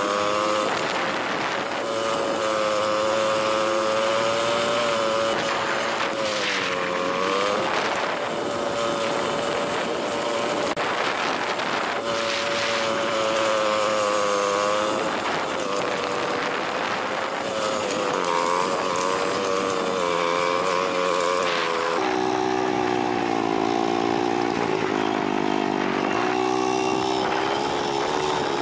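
A vehicle's engine running steadily while driving. Its pitch dips and rises again several times, and changes abruptly to a lower note near the end, over a background of wind and road noise.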